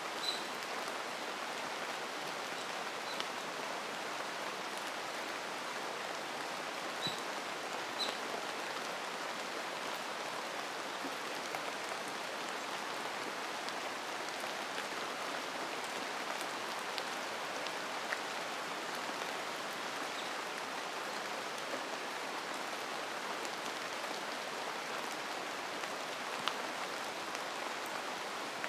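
Steady rain in a mountain forest: an even hiss, with now and then a short, sharp tick.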